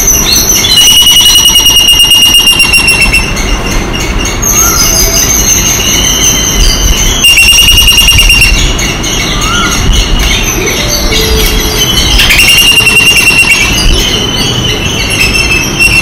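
Babblers calling: a loud, shrill, rapid chatter held at one high pitch for two to three seconds at a time, repeated four times, with short upward chirps from another bird between the bouts.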